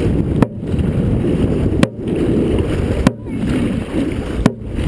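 Dragon boat drum struck four times at an even beat about every second and a half, setting the paddlers' stroke rate, over a steady rush of water and wind on the microphone.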